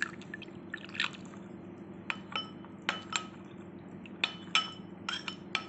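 A metal spoon stirring cornflour into water in a cut-glass bowl, clinking sharply against the glass about a dozen times at uneven intervals, with water being poured in at the start.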